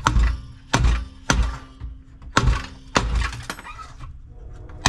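Rubber mallet striking a Briggs & Stratton 550EX mower engine's crankcase, five or six sharp blows about half a second to a second apart, each with a short ring from the housing. The blows are knocking the crankcase cover loose over a bent crankshaft, which makes it hard to come apart.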